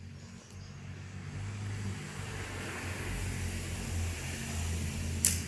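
A steady low hum that grows louder, with one sharp click about five seconds in.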